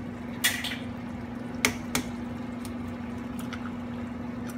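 Eggs being cracked against the rim of a skillet: a sharp knock about half a second in, then two quick cracks and a few fainter ticks, over the soft bubbling of a simmering tomato sauce and a steady low hum.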